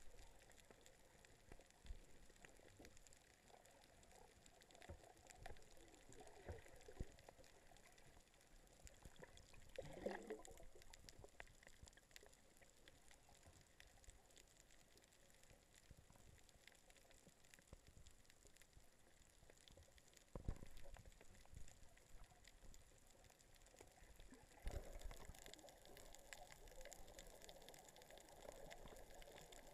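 Faint, muffled underwater sound of water moving and bubbling, with a few dull knocks.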